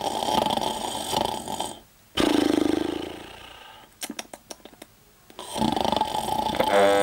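A person snoring: a long rasping snore, then a loud fluttering one that fades away, a few small clicks, and the next snore building near the end.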